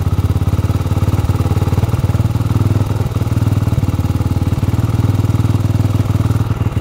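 Honda XR400R's air-cooled single-cylinder four-stroke engine idling steadily, an even rapid thumping. It is idling above its usual idle speed, which the owner says normally drops right down.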